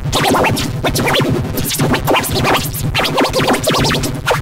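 Dense, heavily processed electronic audio with many quick, scratch-like pitch sweeps throughout.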